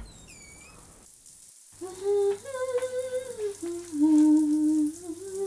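A person humming a slow tune over the hiss of running shower water, with a few short high chirps and a brief gap before the humming begins.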